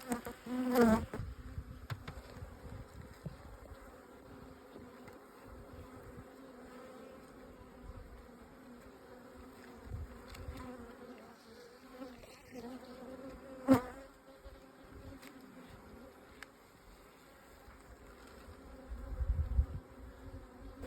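Native dark honeybees (Apis mellifera mellifera) humming steadily from an open hive. A sharp click sounds about 14 seconds in, and a low rumble comes near the end.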